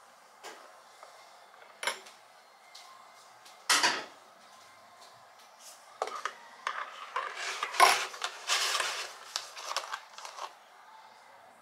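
Metal teaspoon clinking against a ceramic cup: a few light taps and a louder knock in the first four seconds, then about four seconds of fast clinking as the drink is stirred.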